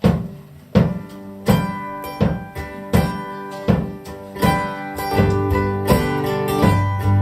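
Live acoustic guitar playing a song's intro in a steady rhythm, with a sharp percussive strike on each beat about every three-quarters of a second. It fills out about five seconds in as a sustained low note joins.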